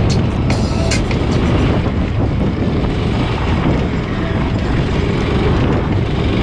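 A Honda 390cc single-cylinder engine on a Yerf Dog off-road go-kart running steadily under throttle while driving on dirt, with wind buffeting the onboard microphone. A few sharp rattles come in the first second.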